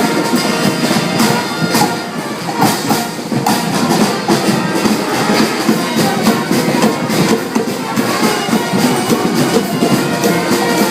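Marching band playing live, with drums beating out many sharp strokes under sustained horn or brass lines.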